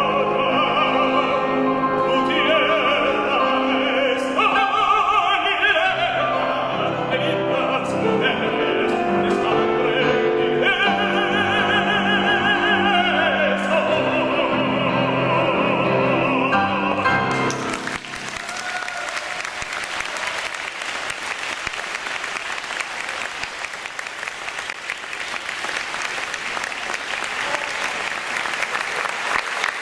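Male opera singer with grand piano accompaniment, holding long sung notes. The singing and piano stop about two-thirds of the way through, and an audience applauds.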